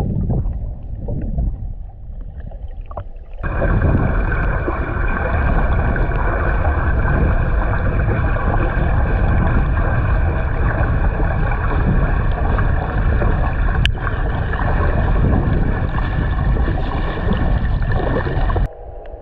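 Water noise picked up by a GoPro held underwater while snorkeling. A low, muffled rumble turns about three seconds in into a much louder, steady rushing that cuts off suddenly near the end. There is a single sharp click partway through.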